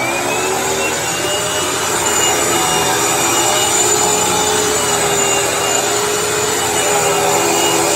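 Hoover WindTunnel upright vacuum cleaner running steadily, motor and brush roll spinning, with a higher whine rising in the first second as the motor comes up to speed. It is its first run after sitting unused for years, on a new belt.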